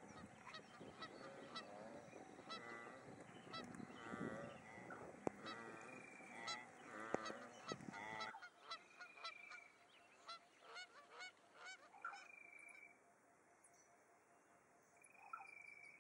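Faint honking bird calls, repeated, each with a wavering pitch. About halfway through the background noise drops off suddenly, and a few short, falling whistled calls and soft ticks follow.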